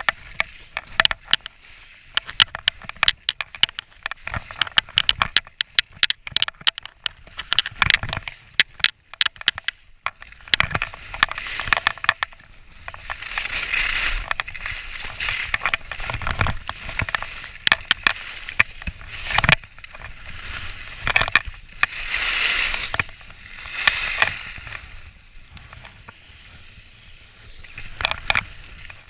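Skis sliding and turning on snow. For the first ten seconds or so there is a rapid clatter of sharp clicks. After that come a series of swelling hissing scrapes, one with each turn.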